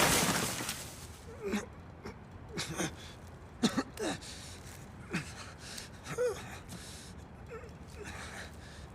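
A young man gasping and groaning in pain after being beaten, in about six short, separate breaths and groans. A loud hiss fades out over the first second.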